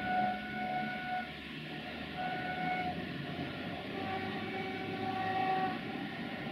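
Locomotive horn of an approaching Romanian 060-EA (LE5100) electric locomotive sounding three times: a blast of about a second, a short one, then a longer one of nearly two seconds on a different note. A low rumble from the train runs underneath.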